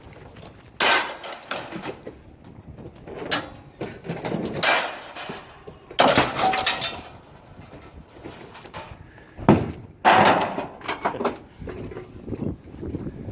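Pieces of scrap iron and steel thrown onto a scrap pile, landing in a series of separate crashing clangs a few seconds apart, the loudest about one, six and ten seconds in.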